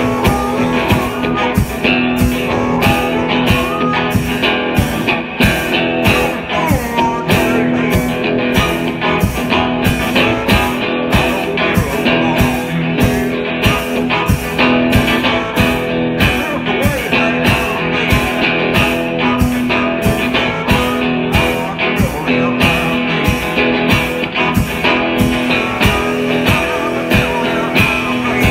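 Live blues-rock from a harmonica and drum kit: the harmonica wails over a steady beat, with drum or cymbal hits about twice a second.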